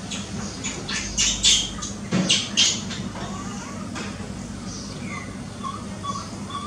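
Baby macaque giving short, harsh squawking cries in two quick runs about one to three seconds in, followed by fainter short chirping calls.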